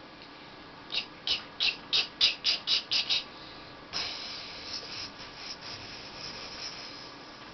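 A young boy's vocal imitation of a steam train: a run of breathy 'chh' chuffs that speed up, about eight in two seconds, then a long hiss that fades out over about three seconds.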